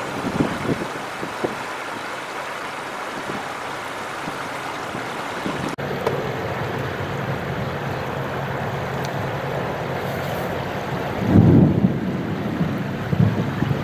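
Fast-flowing floodwater rushing across a road, with wind buffeting the microphone. About six seconds in the sound cuts to a steady low engine hum from vehicles driving slowly through shallow floodwater, with a louder gust of wind noise near the end.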